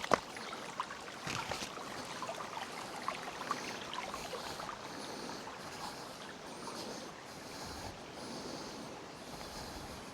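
Creek water running and trickling over stones, a steady rushing, with a few sharp knocks in the first two seconds.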